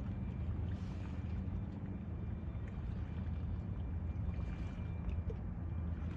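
Steady low drone of the lake freighter John J. Boland's engines, heard across open water.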